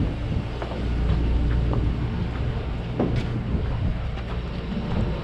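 Fishing boat's machinery running with a steady low drone, with a few light clicks and knocks over it, the clearest about three seconds in.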